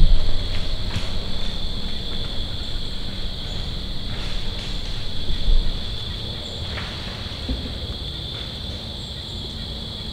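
Steady high-pitched drone of insects trilling in autumn woods. Low rumbling noise on the microphone is loudest at the start and again about five and a half seconds in.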